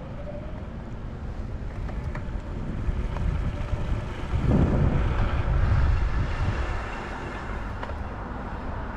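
Wind buffeting the microphone during an outdoor ride, a steady low rumble with road noise underneath, swelling to its loudest about halfway through.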